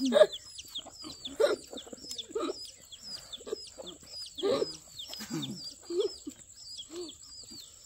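Chickens clucking at irregular intervals, over high peeping chirps that repeat several times a second. A steady high whine runs underneath.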